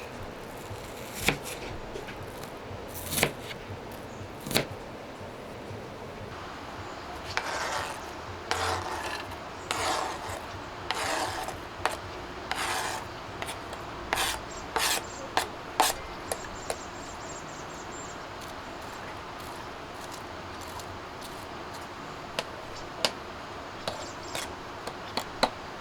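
Hand food preparation: a run of rasping strokes about once a second in the middle, with scattered sharp clicks and knocks before and after.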